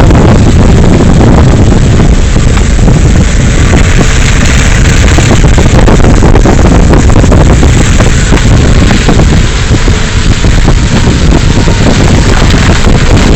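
Vehicle in motion: a loud, steady rumble of engine and road noise, with wind buffeting the microphone.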